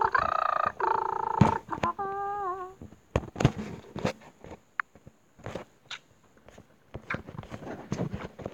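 A child's voice humming a few held notes, the last one wavering and trailing off about three seconds in. After it come scattered light clicks and knocks, like a phone being handled and tapped.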